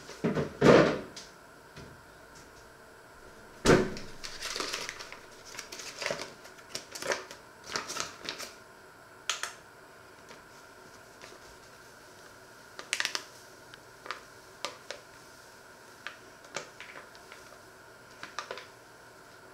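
Handling noises on a kitchen counter: two loud knocks, about a second in and near four seconds, then scattered clicks and rustles. Near the end a paper flour bag is handled and tipped over a steel mixing bowl.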